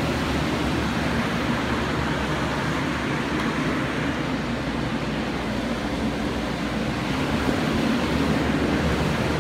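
Steady rushing noise with a low hum beneath it, even and unbroken throughout.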